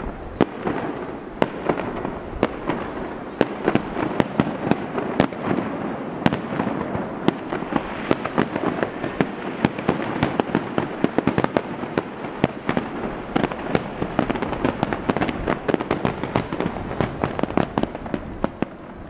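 Aerial firework shells bursting over the sea in rapid, irregular succession: many sharp bangs and crackles overlapping one another.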